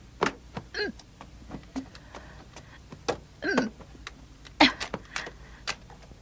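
Handling noise as a small electric fan heater is set down and set up on the floor: scattered clicks and knocks, with a few short murmured vocal sounds in between.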